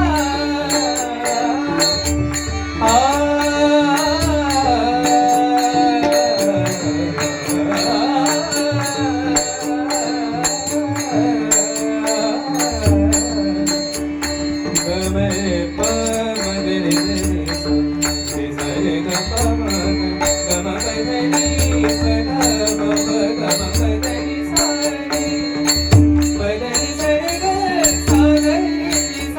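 Bhajan music: a gliding melody over a steady held drone note, with a drum beat and small cymbals keeping time.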